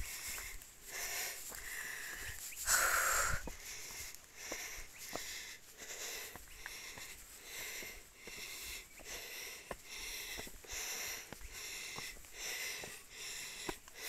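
A person panting hard while climbing steep trail steps, short wheezy breaths about two a second, one louder gasp about three seconds in: out of breath from the uphill climb. Faint footsteps on the gravel path between the breaths.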